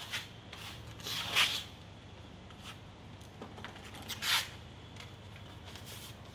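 Steel trowel scraping and smearing wet first-coat screeding paste across a cement-rendered wall: rasping swishes, with two louder strokes about a second in and about four seconds in, and fainter scrapes between them.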